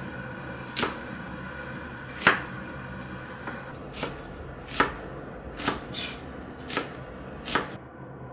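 Kitchen knife chopping food on a cutting board: about eight slow, separate strokes, over a steady low hum.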